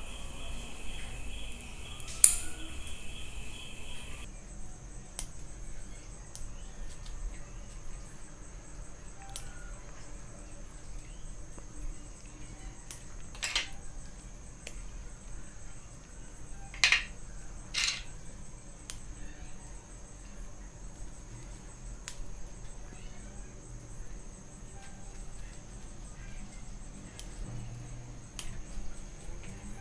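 Bonsai pruning shears snipping twigs off a Streblus asper (sandpaper tree) bonsai: a few sharp snips, the loudest about two seconds in and more around the middle. A steady high-pitched tone runs in the background and jumps higher a few seconds in.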